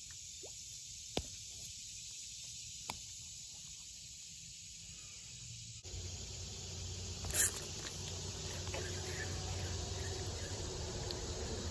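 Steady, high-pitched chorus of insects, with a few sharp clicks in the first few seconds and one short, loud noise about seven seconds in.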